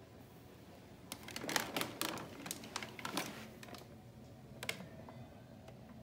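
A quick run of light clicks and plastic rattles from about one to four seconds in, with one more click near five seconds: an upright vacuum, switched off, being handled on its plastic body.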